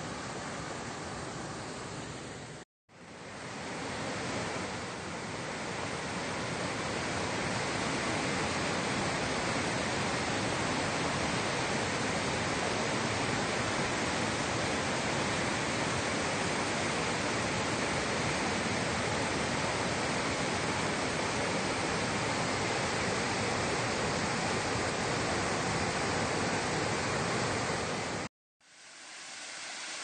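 Rushing water of a small waterfall and rocky river rapids: a steady, even rush. It drops out to silence for a moment twice, about three seconds in and near the end, and is a little louder after the first drop-out.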